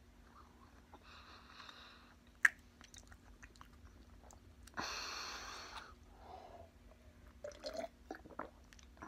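Chewing a mouthful of Twix bar with breathing through the nose, one sharp click about two and a half seconds in and a strong nasal breath around five seconds. Near the end, gulping while drinking from a metal tankard.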